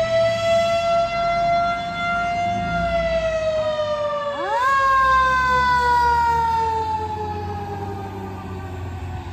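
Fire engine sirens sounding as the engine pulls out: one tone falls slowly, and about four seconds in a second tone sweeps sharply up and then falls slowly. A low engine rumble runs underneath.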